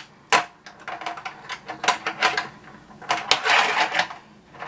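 Fingerboard clacking and rolling on a plastic ramp: a sharp clack, then a run of light clicks, taps and rattles as its trucks and wheels hit and roll on the plastic.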